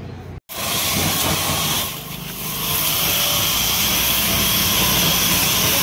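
Pressure washer jet spraying water onto a car's alloy wheel and tyre: a loud steady hiss that starts abruptly about half a second in and eases briefly about two seconds in. The water pressure pump keeps up a steady low hum underneath.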